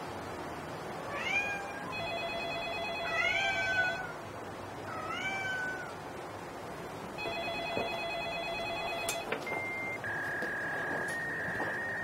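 A cat meows three times, about two seconds apart, while a telephone rings twice, each ring about two seconds long. Near the end a short high electronic beep is followed by a steady high tone lasting a few seconds.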